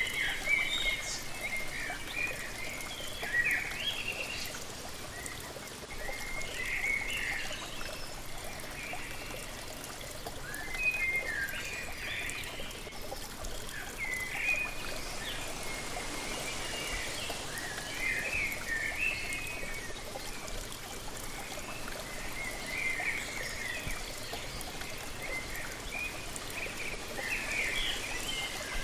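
Waterfall rushing steadily, with birds chirping in short, scattered bursts of high calls over it.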